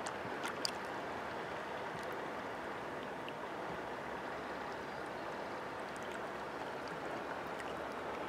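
Steady rushing of a fast-flowing river, with a few faint clicks.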